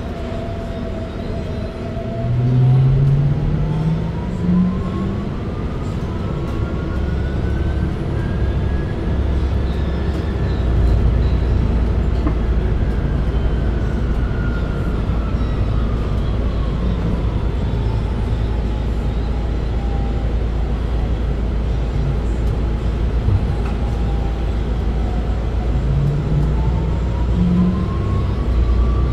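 Cabin sound of a MAN Lion's City Hybrid diesel-electric city bus under way. The electric drive's whine rises in pitch as the bus gathers speed, peaks about ten seconds in, falls as it slows and rises again near the end. Under it runs a steady low diesel drone, which climbs briefly about two seconds in and again just before the end.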